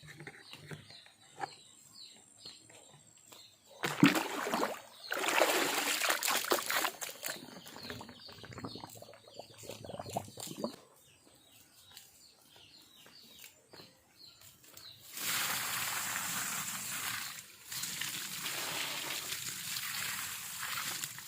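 Water running and sloshing in two long stretches, with a brief pause between pours in the second.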